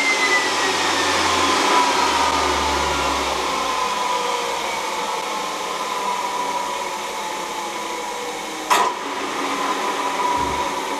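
TS-20B aircraft turbostarter's turbine spinning down: a whine falling steadily in pitch over a rush of air, with one sharp click about nine seconds in. The gas-torch ignition lit it only poorly.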